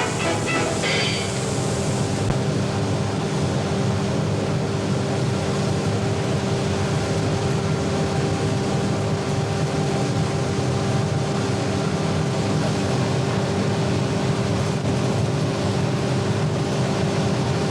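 A steady, even drone made of a low hum with a few fixed tones over a constant hiss. The tail of some music fades out about a second in.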